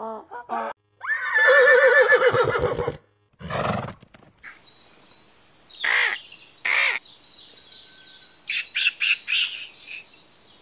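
A Somali wild ass braying, one long call with a wavering pitch and a shorter rough call after it. Then a bald eagle calling: two sharp high cries about a second apart and, near the end, a quick run of high chattering notes.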